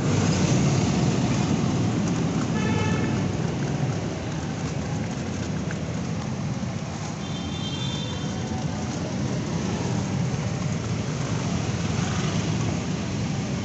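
Street traffic: a steady rumble of cars and motorcycles passing close by. Two brief high-pitched tones stand out, one about three seconds in and another about eight seconds in.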